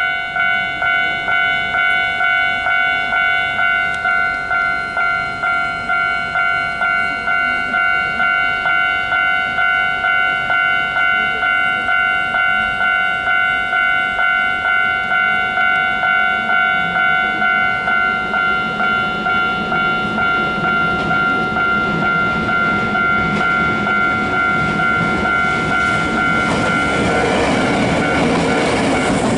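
Japanese level-crossing warning bell ringing in a steady, evenly pulsed 'kan-kan', about two strokes a second. A Hankyu Takarazuka Line train approaches, its running noise growing from about two-thirds of the way in, and passes loudly near the end.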